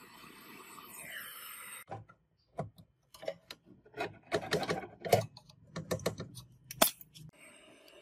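A gas brazing torch's flame hisses steadily, dropping in pitch about a second in. Then come a few seconds of sharp metallic clicks and clinks as pliers grip and work a copper pipe on the refrigerator compressor. The torch hiss starts again near the end.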